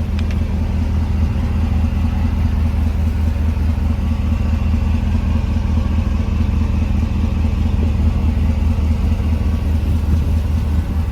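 Chevrolet Silverado 3500HD's 6.0-litre gas V8 idling steadily.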